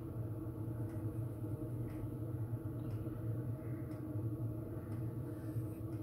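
2 kW Chinese diesel air heater running: a steady hum from its fan and burner, with a faint tick about once a second from its fuel dosing pump.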